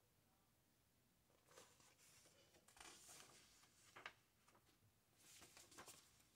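Near silence, with faint paper rustling and a few soft clicks as a book's pages and cover are handled.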